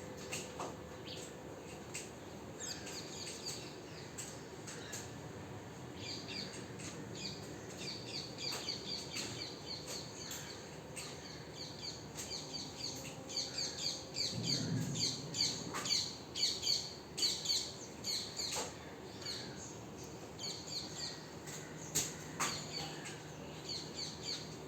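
Small birds chirping in quick repeated trains of short high notes throughout, with a brief low rumble about fifteen seconds in.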